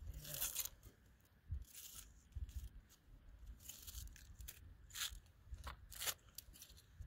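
Faint crunching and tearing of food being handled and cut at a meal: about six short, irregularly spaced strokes.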